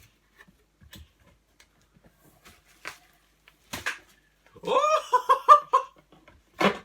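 Cardboard box and its contents being handled, in a few sharp rustles and knocks. About five seconds in comes a high, voice-like call: one rising note broken into four quick pulses, the loudest sound here.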